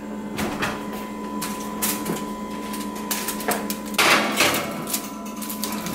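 Clicks and knocks of a foil-covered glass baking dish going into an oven and the oven door being shut, with the loudest knock about four seconds in, over a steady electric hum.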